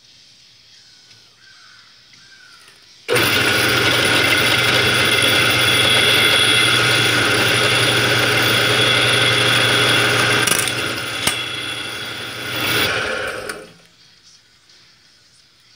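A bench drill press switches on abruptly about three seconds in and runs loud and steady with a constant hum while its bit drills into a small white plastic piece. It drops somewhat in level after about seven seconds, swells briefly, then cuts off a little before the end.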